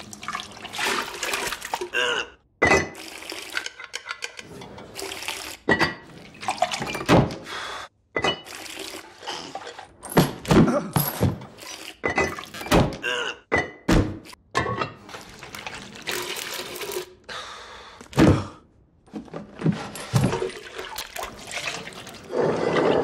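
A quick succession of short, separate sounds, each cutting off suddenly: knocks and thunks of pots and bowls, and thick liquid being poured and ladled into bowls with a slop.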